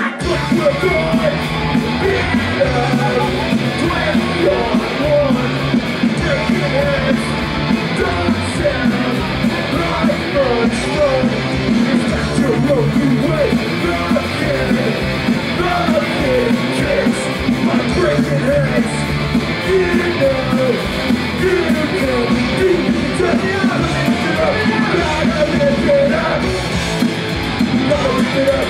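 A punk rock band playing live, loud and fast, with a singer yelling the vocals over the band. The song kicks in with the full band all at once right at the start.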